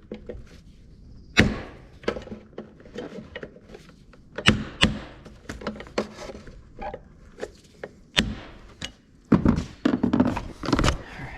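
Irregular sharp taps and knocks of a tool striking a small metal lock tab on an ATV steering shaft, bending it over to lock the bushing retainer's flat. A few louder knocks stand out among lighter taps.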